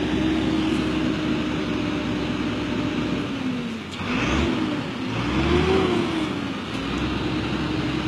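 Bus engine running steadily, revved up and back down twice about halfway through.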